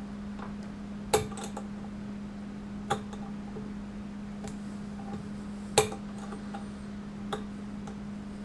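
Steel box-end wrench and Allen key clinking against Hi-Lok fastener collars on an aluminium motorcycle wheel hub as the collars are tightened by hand, a few sharp metallic clinks, the loudest about two-thirds of the way through. A steady low hum runs underneath.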